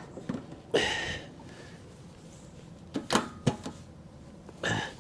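A handful of sharp clicks and clunks from handling a portable gasoline generator and its fuel gear just after refuelling. One clunk about a second in rings briefly, and there are more knocks near the three-second mark and near the end.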